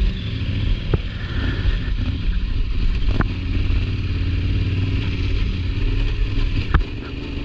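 Adventure motorcycle engine running steadily as the bike rides an off-road trail. A few sharp knocks come through, about one, three and seven seconds in.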